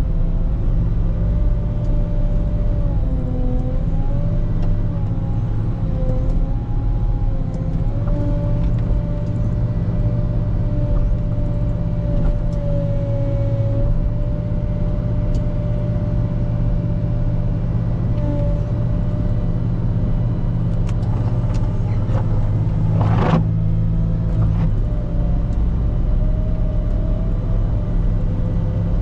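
Volvo L90H wheel loader's diesel engine running steadily while clearing snow, with a higher whine that wavers in pitch for the first several seconds and then holds steady. A single sharp knock comes once, late on.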